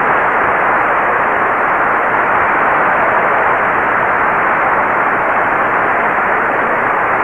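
Steady, dull hiss of noise from an old 1936 radio broadcast recording, with no music or voice.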